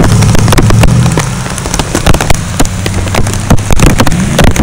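A pickup truck's engine hums past on a wet, flooded road and fades after about a second. Throughout, dense sharp pops and crackles sound as rain strikes the phone's microphone.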